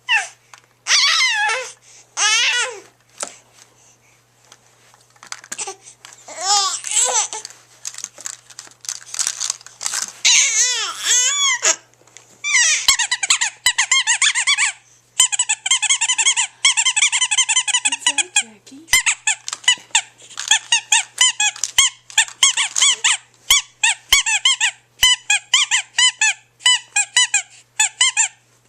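A baby's high-pitched squealing noises: bursts of squeals with a wavering pitch, a couple of long drawn-out ones in the middle, then a run of quick short squeaks toward the end.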